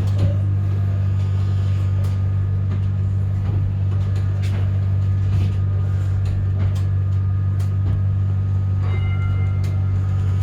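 Yarra Trams Z-class tram running, a steady low hum with faint scattered clicks. About nine seconds in, a brief bell-like ringing tone sounds over it.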